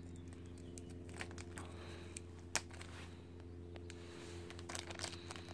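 Faint crinkling and clicking of a small plastic zip bag holding banjo bolts, handled and opened by hand, with one sharp click about two and a half seconds in, over a steady low hum.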